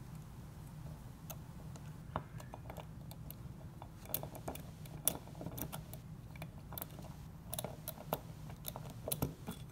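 Small irregular metal clicks and ticks as a screwdriver works the screws of a hard drive's disk clamp ring at the centre of the platters, over a faint steady low hum.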